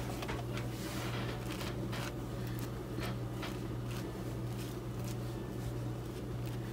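Table knife spreading mayonnaise on a slice of soft sandwich bread: a few faint, irregular scrapes, about one a second, over a steady low hum.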